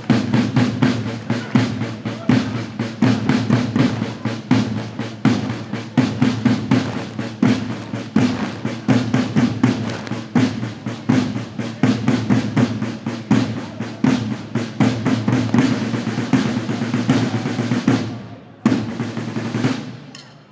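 Parade snare and bass drums playing a fast, steady marching beat with rolls, breaking off near the end.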